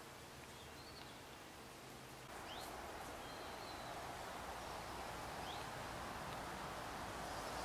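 Outdoor stream-side ambience with short, high bird chirps; about two seconds in, a steady rush of flowing stream water comes in and stays.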